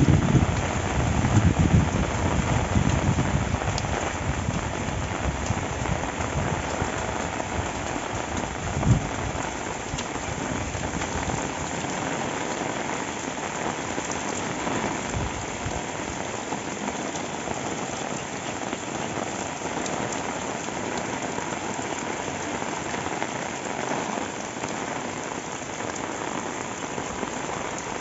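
Steady rain falling, an even hiss of drops. A low, irregular rumble sits under it for about the first ten seconds, then dies away.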